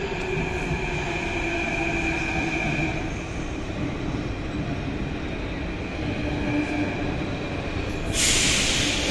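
A second-generation Athens Metro train pulling into an underground station, its running noise and steady whine echoing off the station walls. Near the end comes a sudden loud hiss of air.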